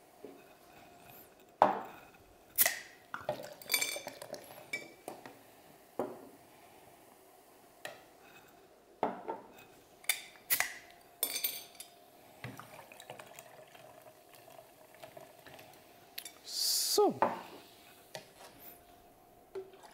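Glass bottles and a glass measuring jug clinking and knocking on a counter as drink ingredients are measured out, in scattered clinks and knocks, with a short hiss near the end.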